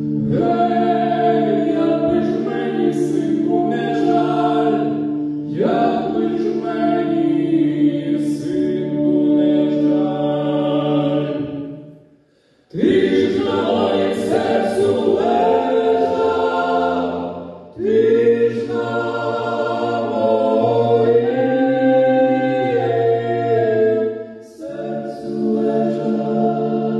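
Choir singing in several parts with long held notes, in phrases separated by short pauses, the longest about twelve seconds in.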